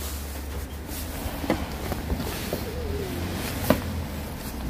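A few short knocks and scuffs of sneakers being put on and stepped onto concrete and a car's bumper step, over a steady low rumble.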